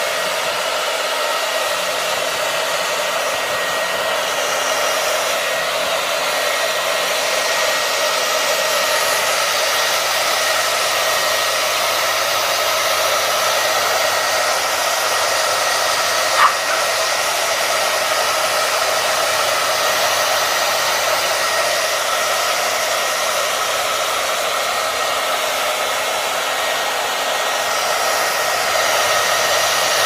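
Hand-held hair dryer running steadily, an even rush of air with a faint steady whine through it. A single short sharp sound cuts in about halfway through.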